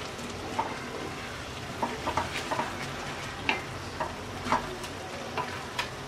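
Wooden spatula stirring thick chana dal with spinach in a steel kadai, with irregular scrapes and knocks against the pan over a steady sizzle from the hot pan.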